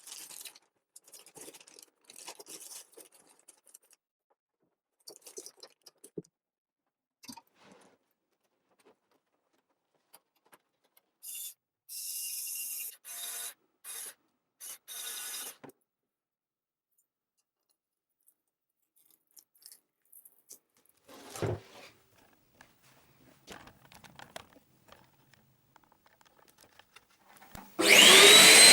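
Small rubbing and scraping handling sounds, a few short rustling hisses in the middle and a single thump, then about a second before the end the Scheppach HA1000 dust extractor is switched on: its motor spins up with a rising whine that levels off into a steady vacuum-like running noise.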